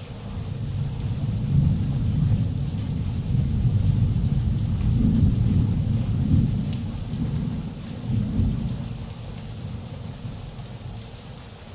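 Steady rain falling on trees and roofs, with a long roll of thunder that builds about half a second in, rumbles for several seconds and fades out near the end.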